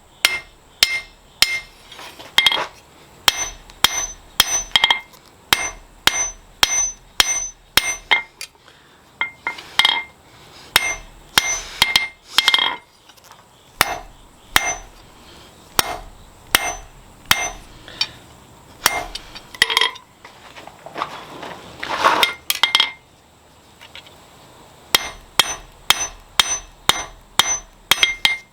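Blacksmith's hammer striking steel on an anvil in runs of blows, about two a second, each with a bright metallic ring. The hammering pauses briefly a few times.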